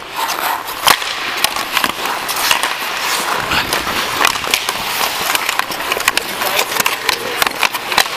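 Hockey skate blades scraping and carving on rink ice, close to a player-worn camera, with many sharp clicks of sticks and puck on the ice; the loudest crack is about a second in.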